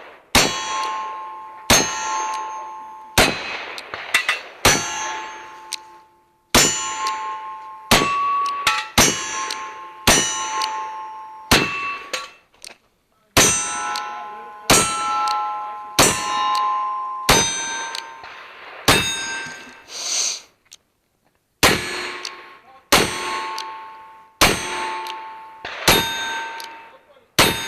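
Pietta 1851 Navy cap-and-ball revolver fired steadily at steel targets, about a shot every second and a half. Each shot is followed by the target ringing with a clang that slowly dies away, a sign of a hit.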